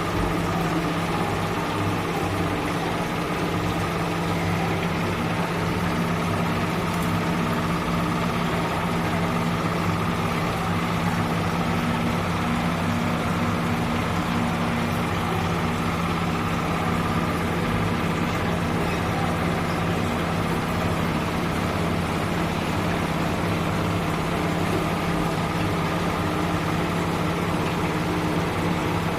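Steady, unchanging mechanical hum with a constant low pitch, like a motor running.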